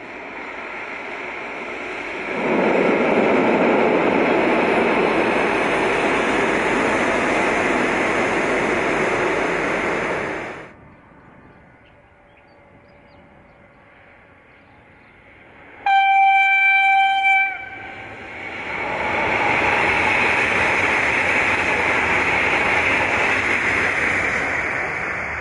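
A V/Line N class diesel locomotive with its carriages rushes past at speed, then breaks off abruptly. After a quieter gap, a V/Line VLocity diesel railcar set sounds its horn in one steady note for about a second and a half, then runs past loudly.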